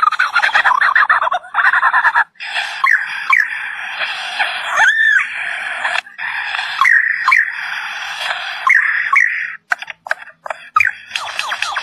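Lyrebird singing its mimicked song: a varied run of chirps, whistles that rise and fall in pitch, and harsh squawky notes, broken by short pauses.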